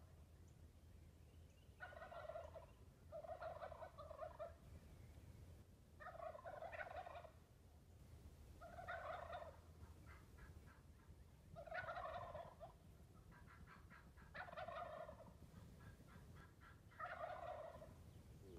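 Wild turkey gobbling faintly, about seven gobbles one every two to three seconds.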